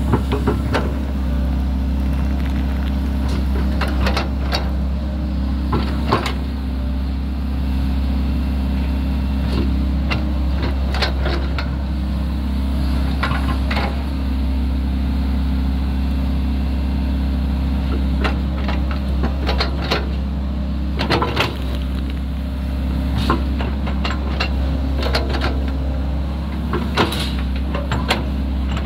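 Sany crawler excavator's diesel engine running steadily while digging, with scattered short knocks and clanks as the bucket and boom work the soil.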